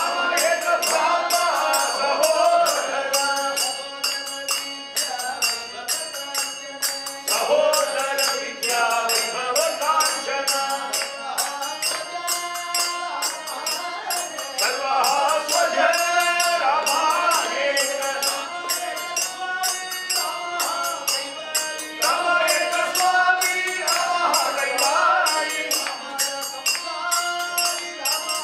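Men singing a South Indian devotional bhajan to a harmonium, with held harmonium tones under the voices. Small hand cymbals keep a steady beat of about three strikes a second.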